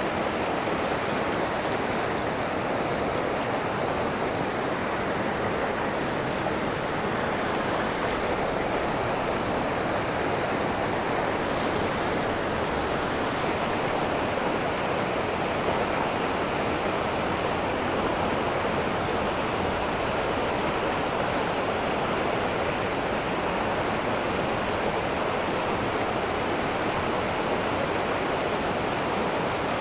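Fast mountain creek rushing steadily over rocks and riffles.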